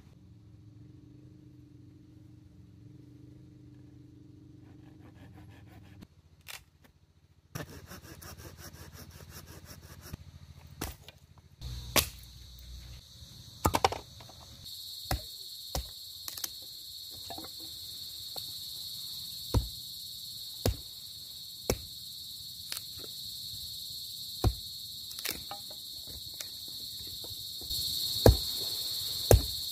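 A hatchet chops and splits dry sticks and bamboo, making sharp, irregular strikes that grow more frequent from about halfway in. A steady high insect chirring starts about halfway through and runs under the strikes.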